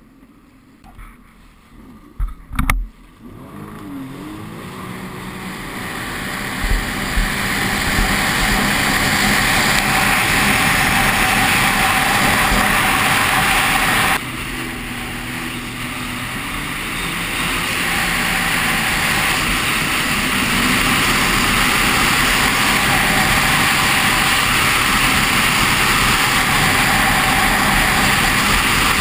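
Sea-Doo RXT 260iS jet ski accelerating away from slow speed, its engine rising in pitch and building to a loud steady high-speed run with wind and water rushing over a helmet-mounted microphone. A few sharp knocks come near the start, and just after the midpoint the sound drops suddenly as the throttle eases, then builds back up to full speed.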